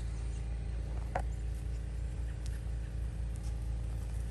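Steady low hum of a generator engine running, with one faint click about a second in.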